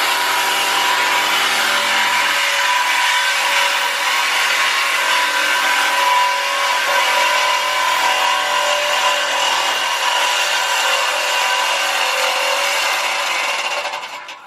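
Power tool cutting through a truck's exhaust pipe for a muffler delete: a loud, steady cutting noise that stops shortly before the end.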